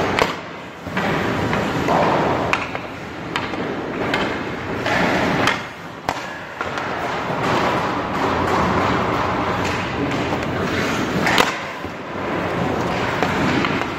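Hockey skate blades scraping and carving across rink ice in swells as a goalie pushes side to side and drops to the ice, with several sharp clacks of stick and puck.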